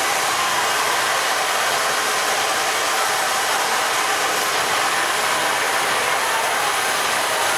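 Steady rushing of air blowers driving a foam-ball play structure's suction tubes and ball cannons.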